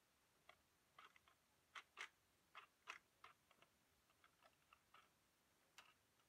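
Faint, irregular clicks and taps of hard plastic as a toy palace playset is handled, with the loudest few clustered a couple of seconds in.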